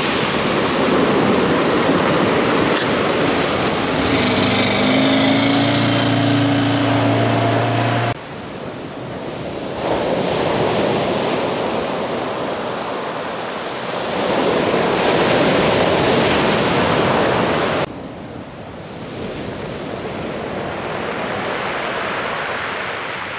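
Surf breaking and washing up the shore in loud swells. About four seconds in, a boat's outboard motor runs for a few seconds underneath the surf, then stops suddenly.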